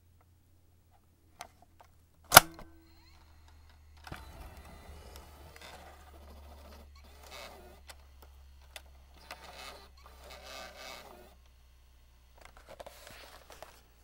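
A cassette tape and its plastic case being handled: one sharp click a little over two seconds in, then several seconds of plastic rattling and scraping, and a short clatter near the end.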